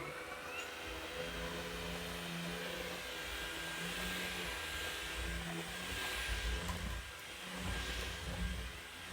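Cordless vacuum cleaner running steadily with a thin, steady high whine over its airflow noise, as it sucks up dog hair; the level dips briefly about seven seconds in.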